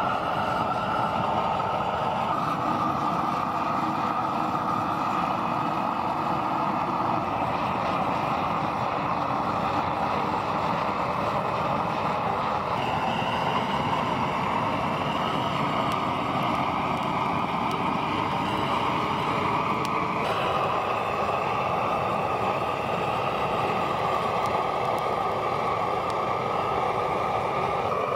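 Propane torch burning with a steady rushing noise as its flame chars the surface of a peeled log post; the tone shifts slightly twice.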